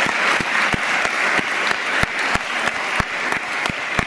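A crowd of choir singers applauding, with louder claps standing out at a steady rate of about three a second.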